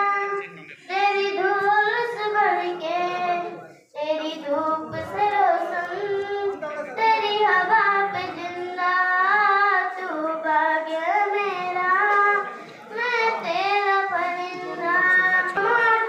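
A young girl singing a song solo and unaccompanied, in long held melodic phrases, pausing briefly for breath a few times.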